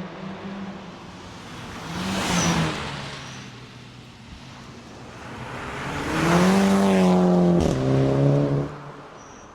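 Audi S3 8P's turbocharged 2.0 TFSI four-cylinder with an aftermarket downpipe accelerating hard. A short rise about two seconds in, then a louder climb in pitch from about six seconds, a gear change near seven and a half seconds that drops the pitch, and the sound fading after about nine seconds.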